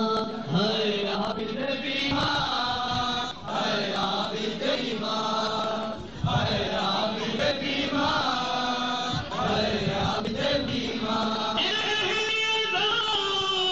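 Men's voices chanting an Urdu noha, a Shia mourning lament, in drawn-out phrases that rise and fall, with short breaths between phrases.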